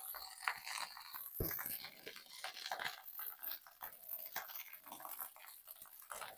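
Rice frying in a hot wok, a faint irregular crackling sizzle, with one sharp knock about a second and a half in.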